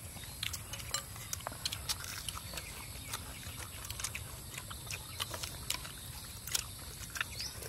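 Close-up eating sounds: irregular wet mouth clicks and smacks of chewing, several a second, over a steady low hum.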